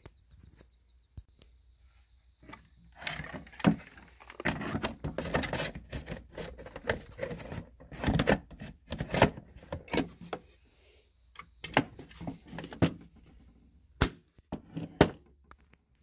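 Handling noise: rustling and shuffling with an irregular string of clicks and knocks, and two sharp clicks near the end.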